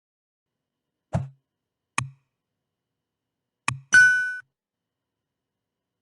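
Short electronic outro jingle: three short, deep percussive hits, then a bright ding that rings for about half a second.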